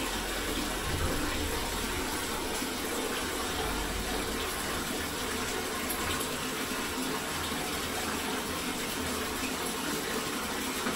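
Bathtub tap running, water pouring into the tub as it fills in a steady, unbroken rush.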